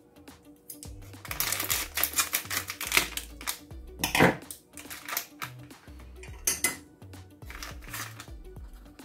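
Plastic packet of powdered milk being cut open with scissors and handled, crinkling in bursts, with one sharp clack about four seconds in. Background music with a steady bass line runs underneath.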